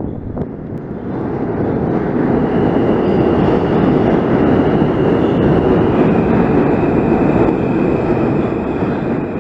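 Train passing close by: a loud rumble that builds over the first couple of seconds and eases off near the end, with steady high whining tones above it.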